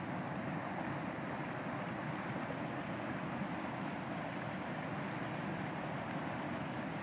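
Shallow stream rushing and splashing over rocks in a steady, unbroken noise.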